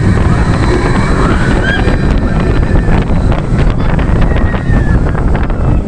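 Wind rushing and buffeting over the microphone of a rider on a moving roller coaster, a loud steady rumble with scattered rattling clicks and faint voices under it.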